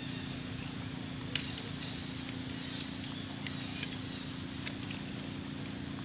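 Steady outdoor background noise with a constant low hum, and a few faint sharp clicks scattered through it.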